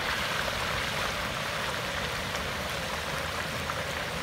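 Hot oil in a turkey fryer pot sizzling and bubbling hard as a whole turkey is lowered slowly into it. The sizzle is a steady, even hiss with a low rumble underneath.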